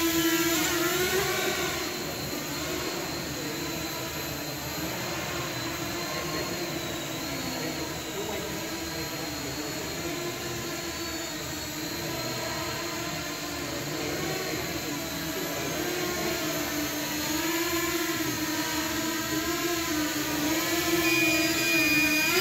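Small racing quadcopter's motors and propellers whirring, the pitch wavering as the throttle changes. It is louder near the start and end as it passes close, and fainter in the middle while it is far off.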